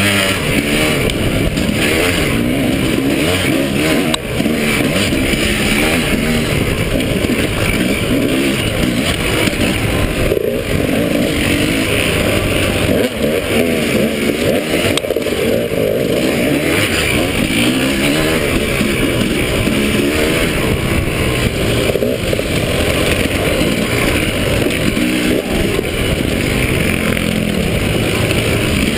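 KTM 300 two-stroke dirt bike engine, heard from on the bike, running hard with its pitch rising and falling again and again as the throttle is opened and shut along the trail.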